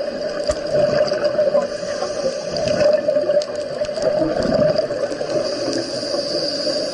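Underwater sound of water and gurgling bubbles, with a steady hum running underneath.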